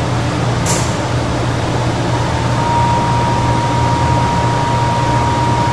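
Steady room noise: a constant hiss over a low hum. A brief high hiss comes just under a second in, and a thin steady whine starts about two and a half seconds in.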